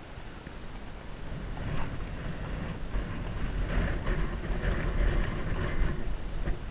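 Wind buffeting a helmet-mounted action camera's microphone as a steady low rumble, louder from about two seconds in, with faint hoofbeats of horses walking on a dirt track.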